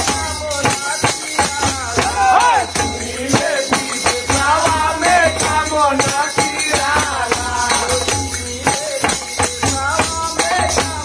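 Men singing a Holi folk song together, a lead voice with others joining. A large hand-beaten frame drum and small hand cymbals keep a steady beat of about two to three strikes a second.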